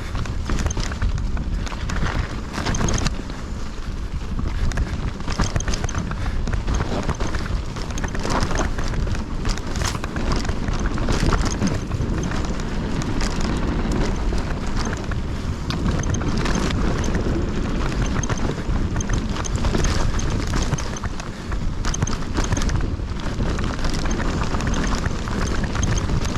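Hardtail mountain bike descending a rough dirt trail: tyres over dirt and rocks with the chain and frame rattling in many sharp knocks, under a heavy wind rumble on the microphone.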